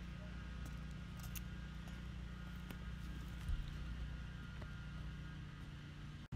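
Steady low background hum of outdoor ambience, with a few faint clicks and a soft thump about three and a half seconds in, cutting off suddenly at the end.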